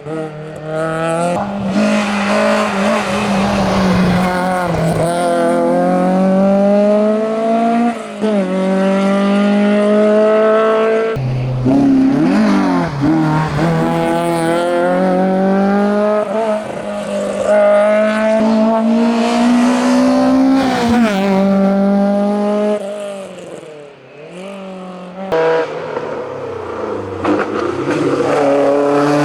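Citroën Saxo hillclimb car's engine at full throttle, revving up and shifting up through the gears several times; the pitch climbs and drops back at each shift, with a lift-off and dip around the middle and again near the end. In the last few seconds a Ford Fiesta XR2's engine is heard revving up instead.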